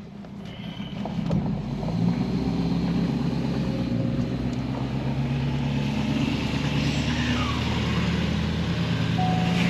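Vehicle engine and road noise heard from inside a pickup truck's cab while driving: a steady low hum that builds about two seconds in and then holds.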